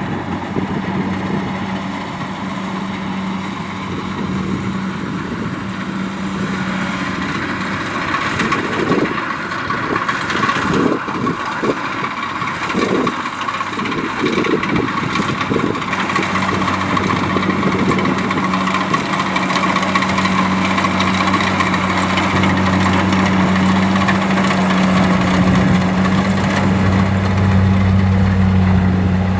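Kubota DC70 combine harvester running steadily as it works through the rice, its diesel engine giving a constant hum. It grows louder toward the end as the machine comes close.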